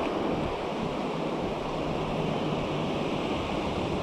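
Surf washing steadily onto a sandy beach, with wind buffeting the microphone.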